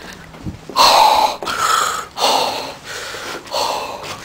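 A person breathing hard close to the microphone: about five quick, noisy breaths, roughly two-thirds of a second apart.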